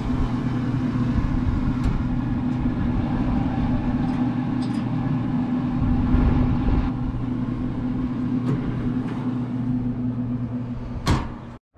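Camp Chef pellet grill running as it heats up: a steady hum from its fan and fire pot over a low rumbling noise, with a few faint clicks. The hum cuts off near the end.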